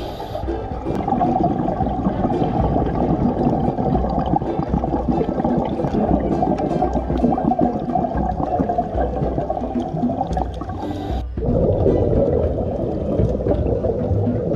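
Underwater sound heard through a dive camera's housing: a steady rumble and gurgle of water and scuba bubbles, with a short break about 11 seconds in.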